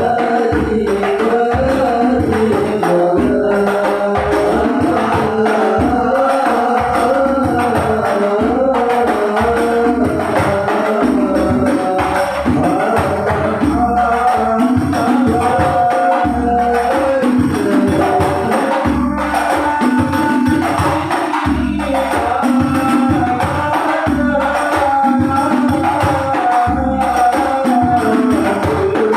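Sholawat devotional music: a melody, most likely sung, wavers over frame drums beating a steady, dense rhythm.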